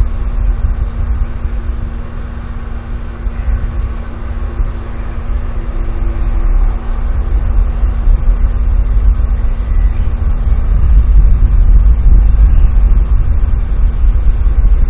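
Wind buffeting an outdoor camera microphone: a loud, uneven low rumble that grows stronger in the second half, over a steady faint electrical hum.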